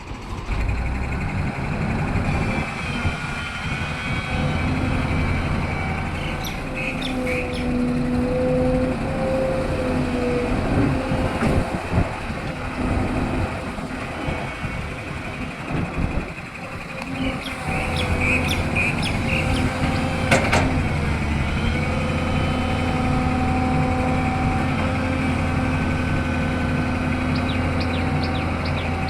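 Diesel engine of a SANY SY210C-9 excavator running steadily under load while it digs and loads mud. A few short metallic clanks and squeaks come about a quarter of the way in and again about two-thirds through.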